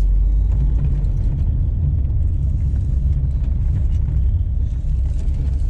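Car being driven, heard from inside the cabin: a steady low rumble of engine and road noise.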